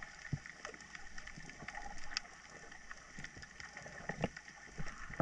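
Faint underwater ambience heard through a diving camera: a low steady hiss with many small scattered clicks and crackles.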